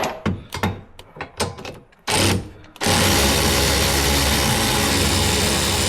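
Clicks and knocks of tools being handled. About three seconds in, a power tool starts and runs steadily, driving in a bolt on a rear shock absorber mount.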